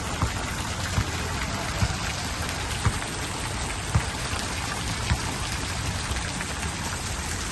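Steady, even hiss of falling or splashing water, with soft low thumps about once a second.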